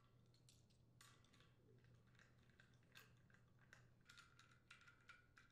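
Near silence with faint, irregular small metal clicks of a nut driver turning hex mounting nuts onto the studs of a condenser fan motor, clustering more thickly in the second half.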